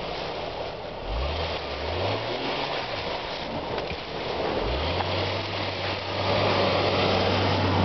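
Jeep Cherokee XJ engine revving up in short rises about one, two and nearly five seconds in, then holding a steady higher note as it drives through deep snow, growing louder as it comes closer, under a steady hiss.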